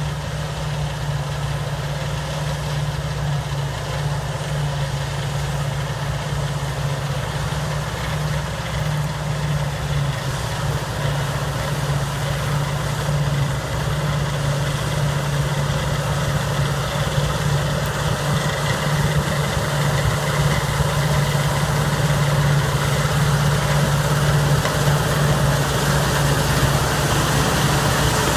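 John Deere 8820 Titan II combine running steadily while harvesting wheat: a constant low engine hum with steady machinery tones above it, growing slightly louder toward the end.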